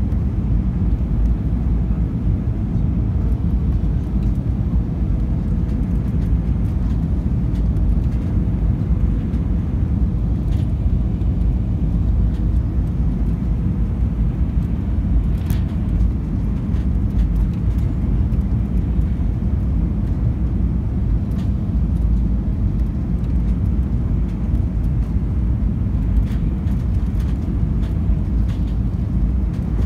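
Steady low rumble of a jet airliner on its landing approach, even throughout, with a faint steady hum above it through the first half.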